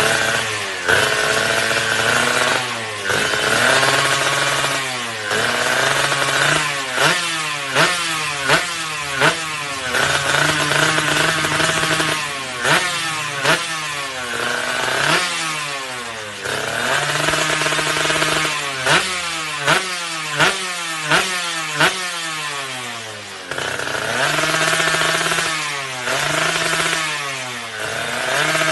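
Two-stroke motorcycle engine running through an ABRT20 racing exhaust, revved over and over: the revs climb, hold high for a second or two and drop back, with runs of quick sharp throttle blips in between.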